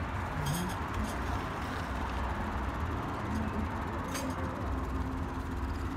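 Steady outdoor café background noise with a low rumble, and a faint light clink about four seconds in.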